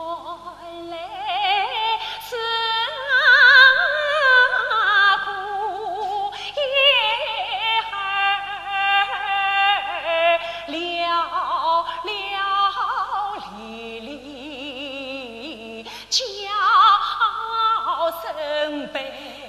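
Female Yue opera (Shaoxing opera) singer singing a slow, ornamented aria line with wide, wavering vibrato on held notes. It eases into a quieter stretch about two-thirds of the way through, then comes back strongly.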